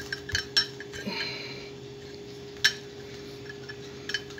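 Gas stove's metal gas tube and valve fittings being handled, giving several sharp metallic clinks and taps with a short scrape about a second in, over a steady low hum.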